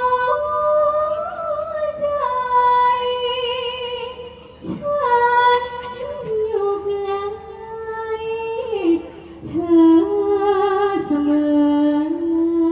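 Likay singer's high, sweet voice singing a slow melodic line of long, held notes with vibrato, the melody stepping gradually lower, with brief breaths between phrases.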